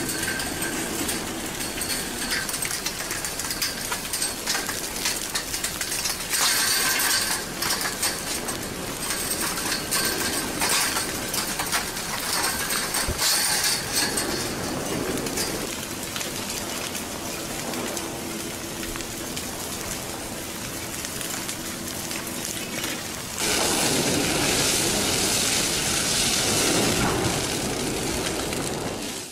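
Advancing a'a lava flow crackling, clinking and crunching as hardened blocks break off and tumble. About 23 seconds in it gives way to a louder, steady rushing noise.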